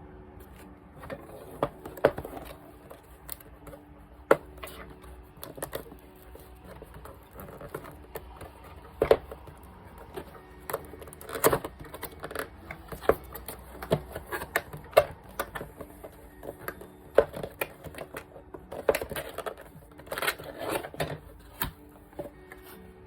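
Keys of an RGB keyboard being pressed: irregular clacks and taps, some single and some in quick runs, over a faint steady hum.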